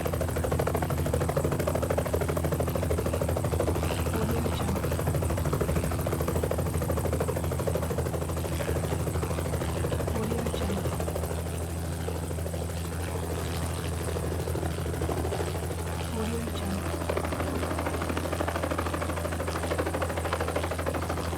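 Helicopter running steadily, the engine drone and rapid rotor-blade chop continuous and even, easing slightly in loudness about halfway through.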